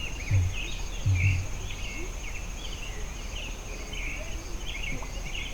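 Many small birds chirping and twittering, with a steady high insect trill running under them. Two dull low thumps come in the first second and a half.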